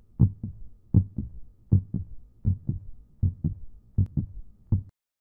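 Heartbeat sound effect: steady paired lub-dub thumps, about 80 beats a minute, cutting off abruptly near the end.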